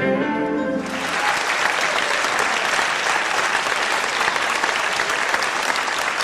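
Film soundtrack music on screen stops about a second in, and a theatre audience applauds.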